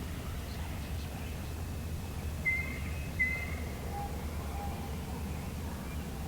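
Steady low rumble of wind on the microphone in open woods, with a few short, high whistled bird notes about midway, then two fainter lower notes.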